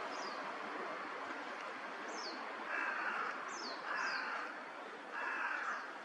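Northern pintails calling at a pond: three soft calls of about half a second each, with short, sharply falling high whistles from another bird scattered between them.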